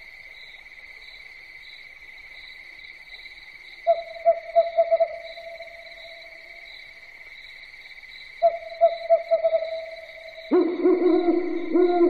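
Owl hooting: two bursts of quick stuttering hoots, about four and eight seconds in, each running into a held note, then a louder, lower drawn-out call starting near the end. Under it all runs a steady high chirring of insects.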